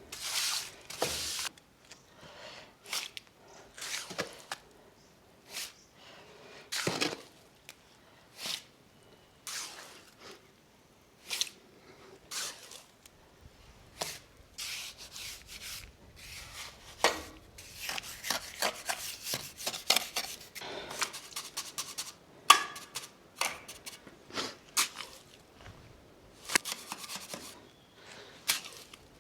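Trowel scraping and smoothing wet cement in a window opening: irregular short scrapes, sparse at first and coming thicker and quicker in the second half.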